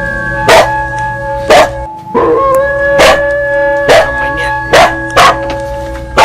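Temple bell struck repeatedly, about eight strikes at roughly one a second. Each strike is a sharp hit followed by a steady ringing tone, and the ringing cuts out briefly about two seconds in before restarting.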